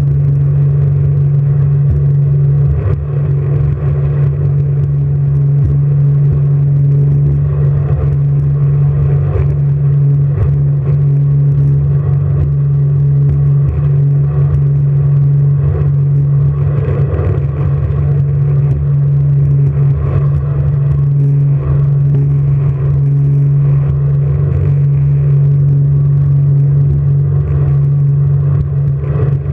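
Jet boat engine running at a steady speed: a loud, unchanging low drone with rushing noise over it.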